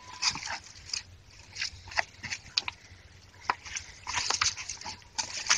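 Leaves and twigs rustling and crackling in scattered bursts as a person pushes through dense undergrowth, busiest near the end.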